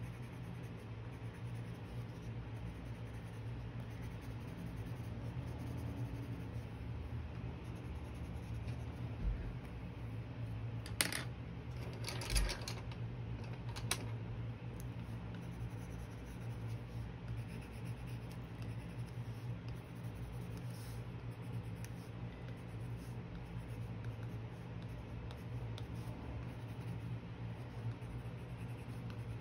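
Colored pencil scratching on paper as an area is shaded, over a steady low hum. A few short clicks come near the middle.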